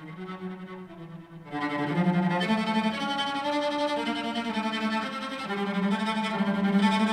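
Bowed-string music in long held notes, low and quiet at first, then growing fuller and louder as higher parts come in about one and a half seconds in.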